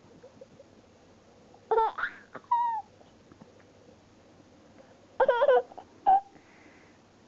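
A baby giggling in two short bursts, about two and five seconds in, each followed by a brief high vocal squeak or hic. The baby has the hiccups.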